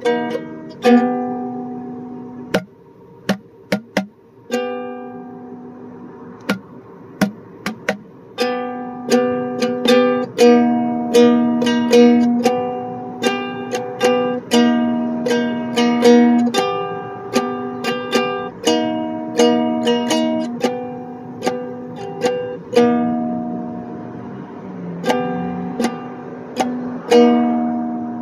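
Acoustic ukulele being strummed in ringing chords with a steady rhythm. From about three to eight seconds in, the strums turn into sparse, muted percussive chops with little pitch, and then the full ringing chords come back.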